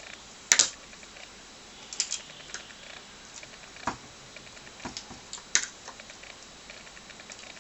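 Scattered sharp clicks and scrapes of a screwdriver and pliers working at the plastic retaining tabs of an ALPS key switch in a TRS-80 Model I keyboard. There is a loud click about half a second in and a few smaller ones spaced over the following seconds.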